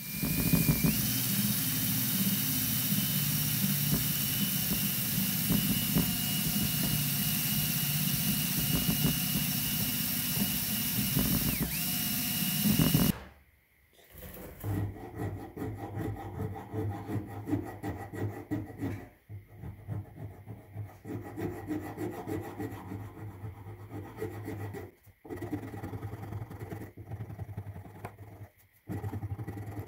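A power tool runs steadily with a high whine for about 13 seconds, then stops. After that, a stabilized red cedar knife handle is sanded by hand with an abrasive strip pulled back and forth across it, in uneven rubbing strokes with a few short pauses.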